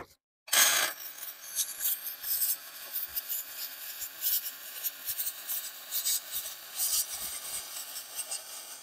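Electric arc welding on aluminum gussets. The arc strikes about half a second in and then runs as a steady hiss with irregular crackles and a faint steady tone underneath.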